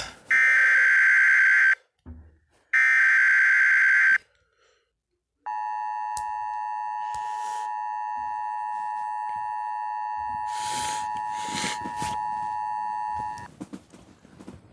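Emergency Alert System activation: the last two of three SAME header bursts of digital data, each about a second and a half long. After a short pause comes the EAS two-tone attention signal, held steady for about eight seconds and cut off abruptly, with a few bursts of crackle over it.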